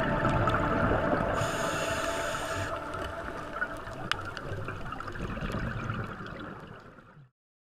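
Ambient music: sustained tones over a noisy, shimmering texture, fading out and stopping about seven seconds in.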